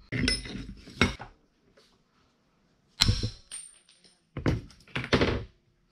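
A handful of sharp metal-on-metal clanks: a claw hammer striking a steel hydraulic hose fitting clamped in a steel bench vise, along with the vise handle clinking. One strike about three seconds in rings briefly with a high tone.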